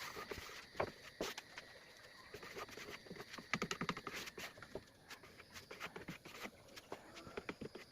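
Irregular light taps and clicks, with a few louder knocks about a second in and around the middle.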